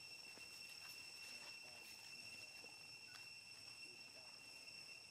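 Faint steady high-pitched insect chirring, holding one or two unbroken tones throughout.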